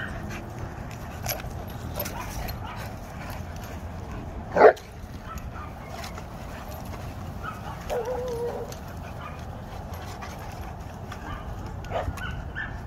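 Dogs play-fighting: a single sharp bark about a third of the way in, the loudest sound, then a short wavering whine a little later, with a few light knocks over steady low background noise.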